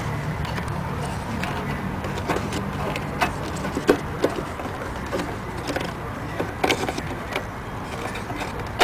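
Scattered sharp plastic clicks and light knocks as a tail light's wiring harness connector is handled and plugged in, over a steady low hum.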